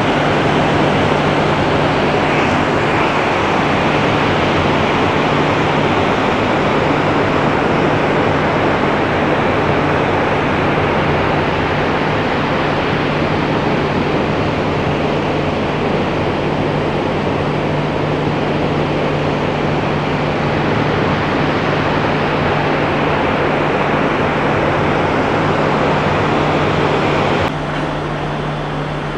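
Steady rushing noise over a low, steady hum from a container ship's machinery, heard on deck. The sound drops abruptly and changes character near the end.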